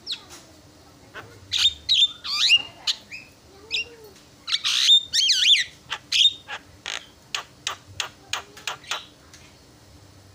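Javan myna calling: a varied run of sharp chips, harsh squawks and wavering whistled notes, ending in a quick string of short sharp notes that stops about a second before the end.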